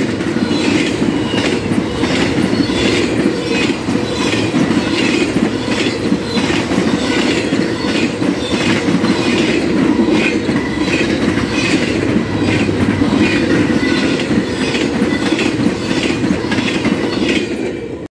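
Intermodal freight cars rolling past: a steady rail rumble with wheels clicking over rail joints about twice a second. The sound drops away at the very end as the last car clears.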